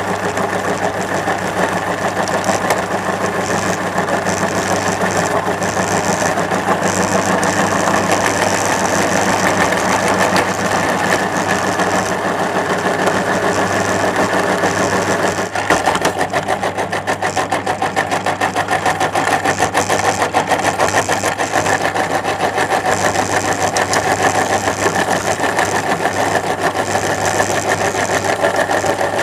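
Electric meat grinder running steadily with a constant hum and a dense, rapid crackle as it crushes hard candy. The sound shifts once, a little past halfway.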